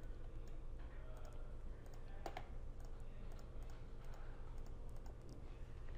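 Faint, scattered computer mouse clicks as points of a curve are placed, over a low steady hum.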